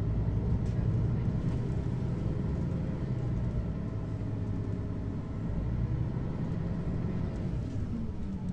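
Mercedes-Benz Citaro articulated city bus driving, heard from inside: its diesel engine and drivetrain run with a steady low drone, the pitch sagging and rising slightly as the bus changes speed.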